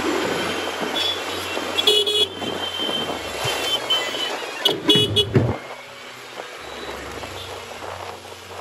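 Busy road traffic heard from a moving motorbike: steady engine and road noise with vehicle horns honking, one short honk about two seconds in and a quick run of several honks around five seconds in.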